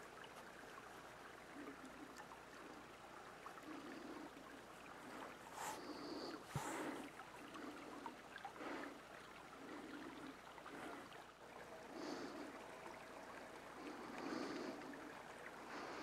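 Faint lapping and trickling of pond water in soft, irregular pulses about once a second, with a couple of faint sharp clicks about six seconds in.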